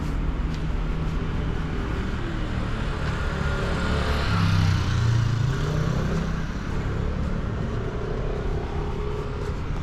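A motor scooter passing close by, its engine growing louder to a peak about halfway through and then fading, over steady street traffic noise.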